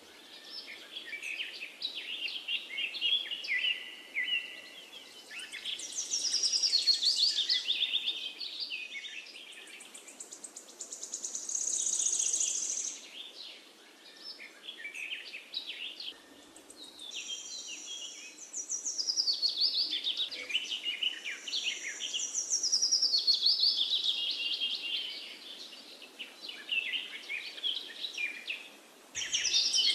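Birds chirping and trilling, high-pitched, in busy bursts that swell and fade every few seconds.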